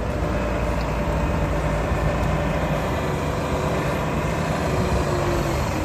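Diesel engine of a Terberg TT222 terminal tractor running steadily.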